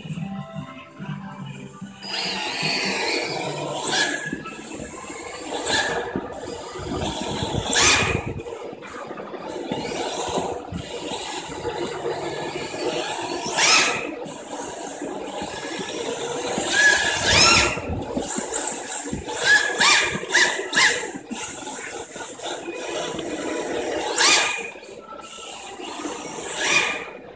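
Electric 1/10-scale Yokomo RC drift car running laps: the motor whines up and down with the throttle, and the tyres slide on the smooth floor in repeated swells.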